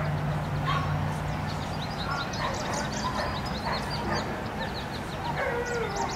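Many short, high bird chirps repeating throughout, over outdoor background noise with scattered mid-pitched calls. A low steady hum stops about a second and a half in.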